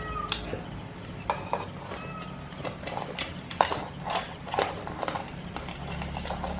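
Metal kitchen tongs clicking and tapping against an aluminium pan and prawn shells as cooked tiger prawns are lifted out onto a plate. The sharp taps come at an uneven pace over a low steady hum.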